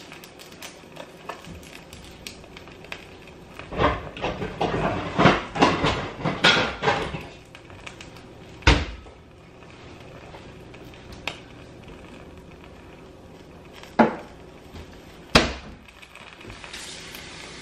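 Kitchen clatter and knocks, dishes, utensils or a cupboard being handled, over the faint sizzle of an egg frying in a skillet. A burst of clattering comes about four seconds in and lasts a few seconds, then single sharp knocks follow, two of them close together, and a soft hiss rises near the end.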